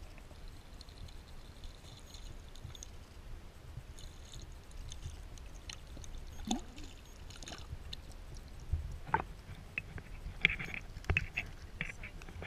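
Muffled underwater sound picked up by an action camera submerged in a lake: a steady low rumble of water with scattered clicks and ticks, which come more often in the last few seconds.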